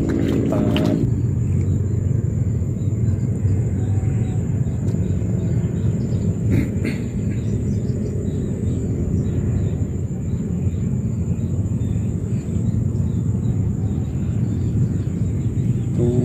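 Steady low rumble of wind buffeting the microphone in open marshland, with a faint steady high whine behind it and a few light clicks about six and a half seconds in.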